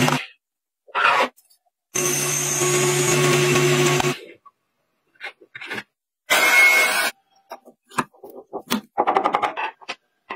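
A metal lathe runs and cuts steadily for about two seconds, with a few held tones. After a silence come short bursts and a quick run of small clicks and taps, as small steel parts are handled and fitted together.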